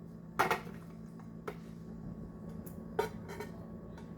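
Kitchen utensils knocking and clinking against dishes a few times as food is served, the loudest knock about half a second in, over a steady low hum.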